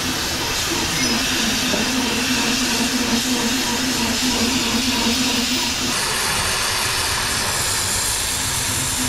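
Oxy-fuel cutting torch on a Koike automatic gas cutting machine hissing steadily as it cuts through steel plate, over a steady low hum. The sound shifts about six seconds in.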